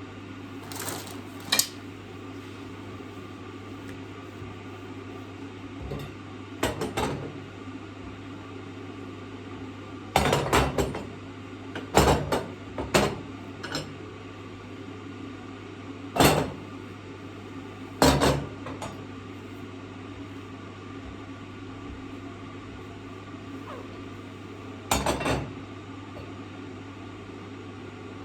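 Kitchenware clinking and clattering now and then as pieces are handled and set down, about ten separate knocks over a steady low hum.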